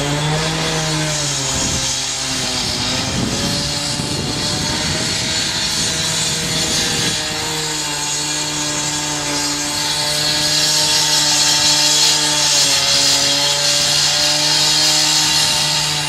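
An engine-driven power saw running and cutting, with a strong hiss. Its engine note holds steady, then shifts in pitch a couple of times as the load changes.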